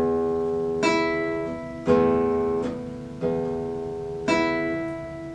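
Nylon-string classical guitar plucked, about five strokes a second apart, each sounding several notes together that ring on and slowly fade.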